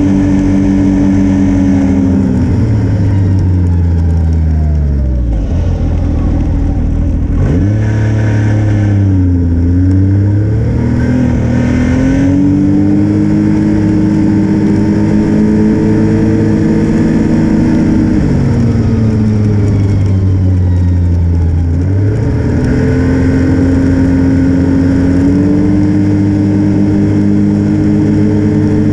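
Snowmobile engine running under way, its pitch falling as it slows and climbing again as it speeds up, several times over.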